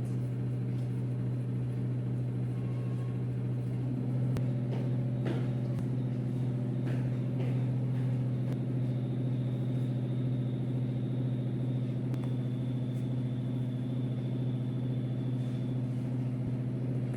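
A steady low hum from a running appliance or fan, with a few faint light clicks. The hum takes on a fuller tone about four seconds in.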